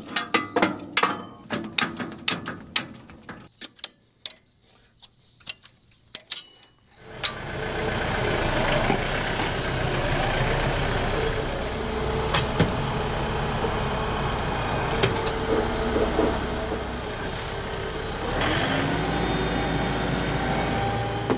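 Crickets chirping under scattered sharp clicks and knocks, then about seven seconds in a tractor engine comes in and runs steadily, picking up a little near the end.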